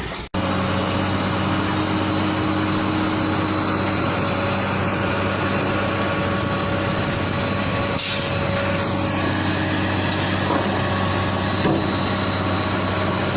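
Heavy machine's engine running steadily at an even pitch, with a short hiss about eight seconds in.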